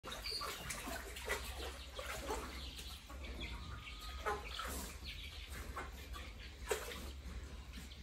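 Pig rooting and slurping in shallow water on a flooded pen floor, with irregular splashes and snuffles, three of them sharper than the rest, and scattered bird calls among them.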